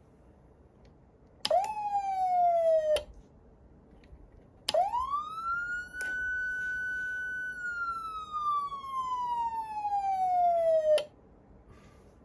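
Federal Signal Unitrol electronic siren (Omega 90 amplifier) sounding two wails. The first is short: it rises quickly and slides down before cutting off. The second rises, holds a high pitch for a couple of seconds, falls slowly and cuts off sharply.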